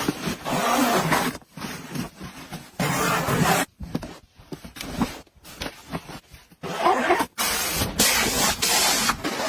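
Noisy handling sounds of household items being unpacked and arranged, in short spliced clips that cut off abruptly several times.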